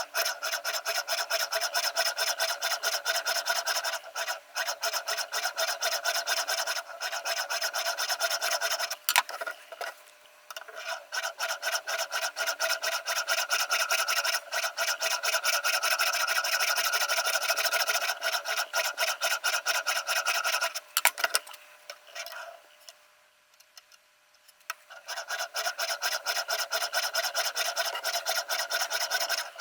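Sharpening stone on a Ruixin Pro RX-008 guided sharpener rubbed in quick back-and-forth strokes along the edge of a VG10 Damascus chef knife, a fast run of rasping strokes. The strokes stop for about two seconds roughly two-thirds of the way through, then start again.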